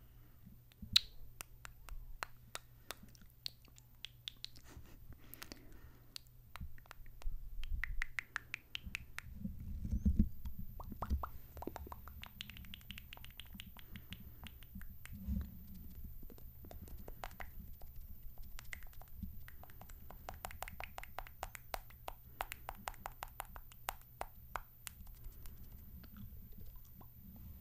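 Close-miked kissing and lip smacking: wet smooches and lip pops that come as quick runs of sharp clicks, with short breathy pauses between the runs.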